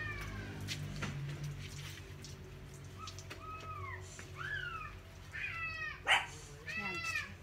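Dog whining: about five short, high cries, each falling in pitch, over a steady low hum, with a brief sharp noise about six seconds in.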